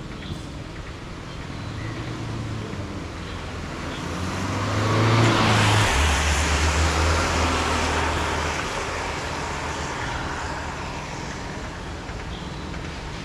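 A motor vehicle drives past on a wet road. Its tyre hiss and engine grow to a peak about five to six seconds in, the engine note drops in pitch as it passes, and then the sound slowly fades away. Steady rain hiss runs underneath.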